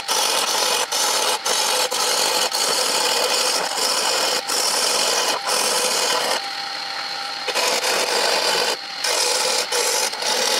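Hand-held turning tool cutting a spinning wooden blank on a wood lathe: a continuous rasping hiss of shavings peeling off the wood. It eases off briefly a few times, longest about six or seven seconds in.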